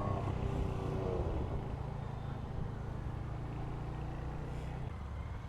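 Engine idling low in traffic just after a hard rev: a steady low rumble, with a faint falling note in the first second as the revs settle. The low rumble drops away near the end.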